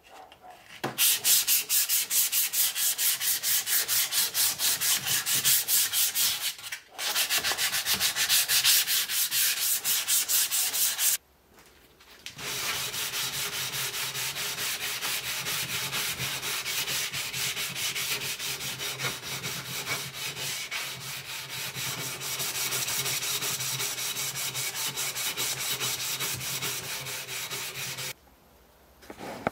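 Sanding on an axe: fast, even back-and-forth rubbing strokes for about ten seconds with a short break in the middle. After a pause comes a steadier, continuous sanding sound with a faint low hum for about fifteen seconds.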